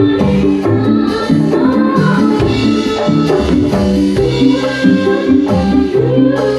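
Loud upbeat music with a steady beat, repeating bass and chord notes, and a shaker-like rattle.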